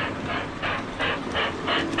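Model steam locomotive's electronic chuff sounds: rhythmic steam-exhaust puffs, about three a second and quickening slightly, over a low running rumble.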